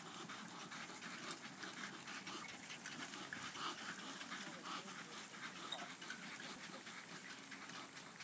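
Soft, rapid hoofbeats of a miniature horse trotting on grass while pulling a two-wheeled cart.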